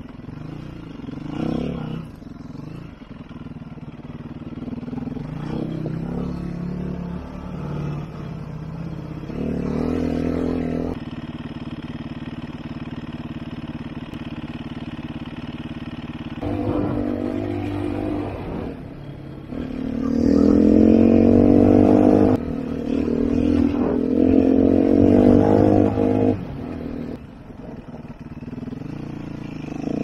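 2011 Sherco 3.0i F enduro motorcycle's single-cylinder four-stroke engine running on a dirt trail, its note changing with the throttle. In the middle it holds a steady lower note for several seconds. Twice near the end it revs up loudly in rising pulls.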